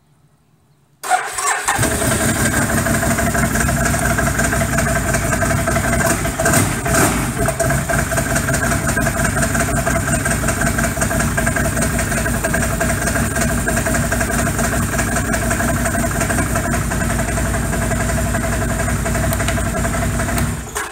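The Can-Am Outlander 800 XT's Rotax V-twin engine starts about a second in, catching right after a brief crank. It then idles steadily and is shut off just before the end.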